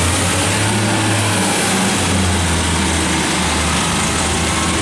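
Underfloor diesel engine of a Class 142 Pacer railcar idling at the platform: a steady low hum under an even mechanical rumble.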